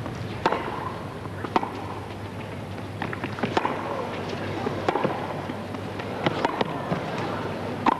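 Tennis rally on a hard court: sharp pocks of the ball off the racket strings and off the court surface, about one every second or so, over a steady low murmur from the crowd.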